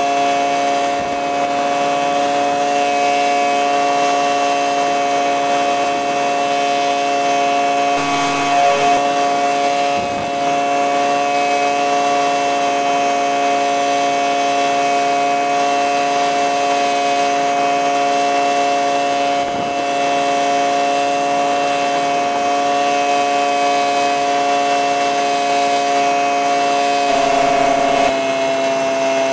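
Microlight aircraft engine and propeller running steadily in flight, a loud, even drone with a slight change in pitch twice.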